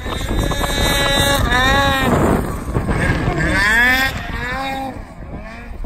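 Snowmobile engine revving hard in deep snow, its pitch sweeping up and dropping back several times, easing off near the end.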